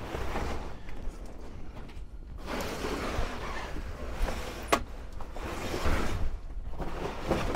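Old pop-up camper canvas rustling and crumpling as it is pulled down and bundled up by hand, in uneven swells, with one sharp snap about two thirds of the way through. Wind rumbles on the microphone underneath.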